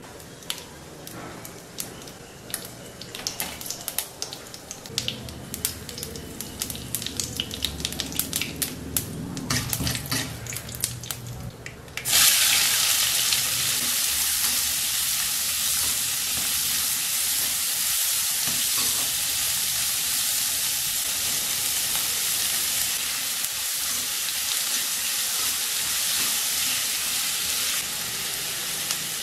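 Urad dal and tempering spices crackling and popping in hot oil in a kadai. About twelve seconds in, chopped onions go into the oil, and a loud, steady sizzle sets in as they fry.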